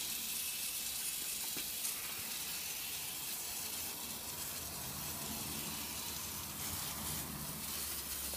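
Garden hose spray gun spraying water onto an alloy wheel: a steady hiss.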